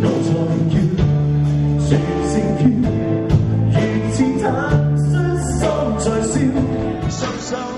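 A male baritone singing a slow song live into a microphone, backed by a band with bass and guitar.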